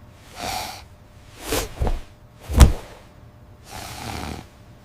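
A person snoring, with noisy breaths coming about every second or so and one short, loud snort about two and a half seconds in.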